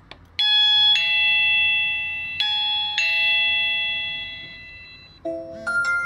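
Electronic doorbell chime played through a small speaker, sounding ding-dong twice, each a pair of bright ringing notes that slowly fade, after a click of the push button. Near the end a short run of lower notes from a smartphone notification tone as the doorbell alert arrives.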